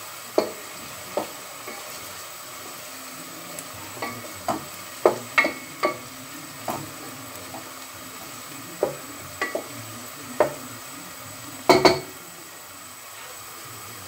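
A wooden spoon stirring chopped carrots and onion frying in a stainless steel pot, knocking against the pot in irregular clicks over a steady low sizzle. Near the end comes a louder clatter of a few knocks, then the stirring stops.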